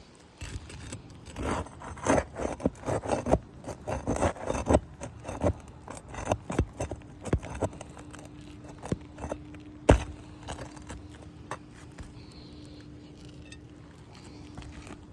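Roofing nails being worked out from under asphalt shingles: a busy run of metal scraping, clicking and clinking, with one sharp click about ten seconds in, then fewer, quieter sounds.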